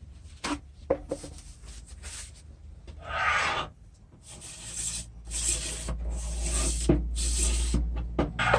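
Rough rubbing and scraping strokes during hand work on a car window regulator, with a few light clicks and knocks. There is one stroke about three seconds in and a longer run of strokes in the second half.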